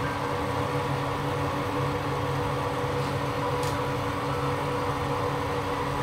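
Butterfly Rapid Plus induction cooktop running under a steel mug of milk: a steady hum of its cooling fan and induction coil, with several constant tones. A brief faint tick comes about three and a half seconds in.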